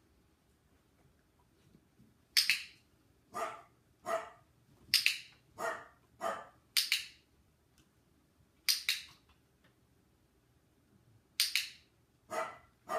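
A small dog barking and yipping in about ten short, separate barks at irregular spacing, starting a couple of seconds in; some are high and sharp, others lower and falling in pitch.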